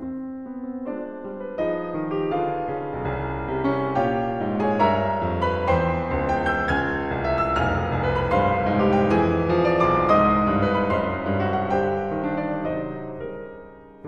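Background instrumental piano music, a run of held notes that grows louder through the middle and fades down near the end.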